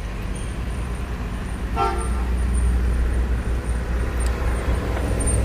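Low, steady rumble of a car's engine and tyres heard inside the cabin as it rolls slowly, with one short horn toot about two seconds in.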